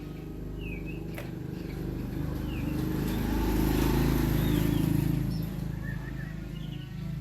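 A motor humming steadily, growing louder in the middle and then easing off, with birds chirping over it.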